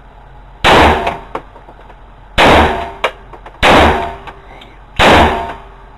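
Desert Eagle pistol fired four times, about one and a half seconds apart, each very loud shot trailing off in a ringing decay.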